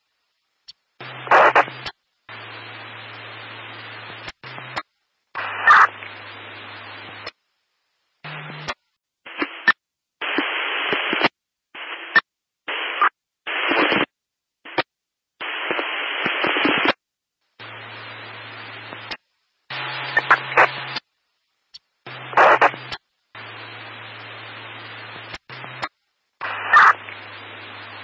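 Radio static coming in bursts of one to two seconds, each cutting off suddenly with short silent gaps between. Several bursts open with a brief high tone, and a low hum runs under most of them.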